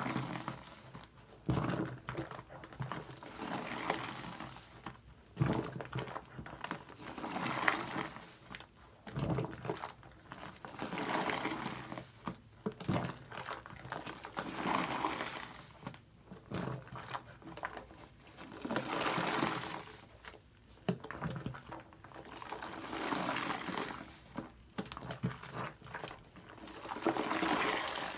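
A soft foam sponge squeezed and kneaded by hand in a sink full of thick shaving-cream lather: wet squelching and crackling of foam, rising and falling in repeated squeezes about every two seconds.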